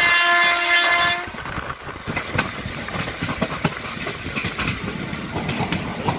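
A train horn sounds one steady blast and cuts off about a second in. It is followed by the clickety-clack of the train's wheels running over rail joints.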